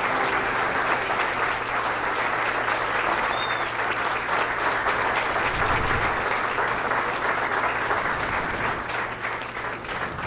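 Crowd of guests applauding, a dense steady clapping that eases slightly near the end.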